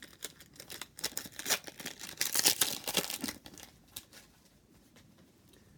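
Paper wrapper of a trading-card pack being torn open and crinkled, in a series of rustling, crackling tears that dies away after about four seconds.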